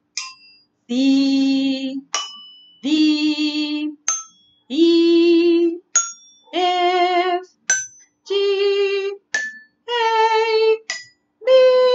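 A toy xylophone struck one note at a time, each short ringing note followed by a woman singing the note's name, the sung notes climbing step by step up the C major scale from C to B.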